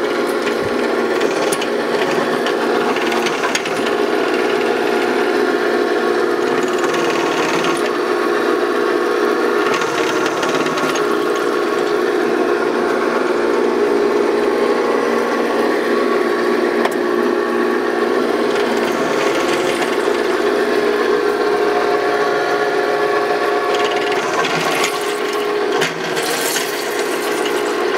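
1930s turret lathe running under power, its straight-cut headstock gears turning in the open gearbox: a steady mechanical hum of several held tones.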